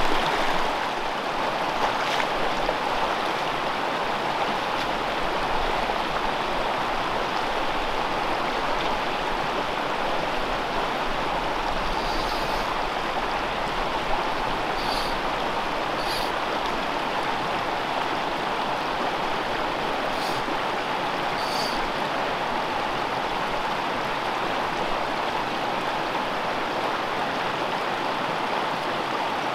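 Small freestone mountain stream running steadily, an even wash of flowing water.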